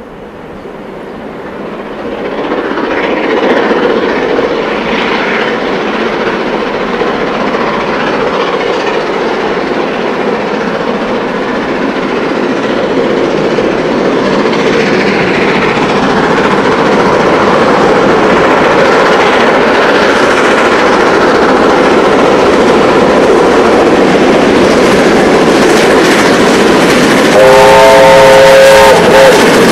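Two New Zealand steam locomotives, J-class 4-8-2 Ja1271 and K-class 4-8-4 Ka942, double-heading a passenger train up a steep grade and working hard, their exhaust swelling from faint to loud in the first few seconds as they approach. About 27 seconds in, a steam whistle blows once for over a second.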